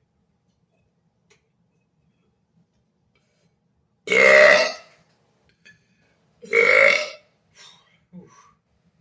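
Two loud, deliberate burps from a man, each under a second long and about two and a half seconds apart, the first a little longer.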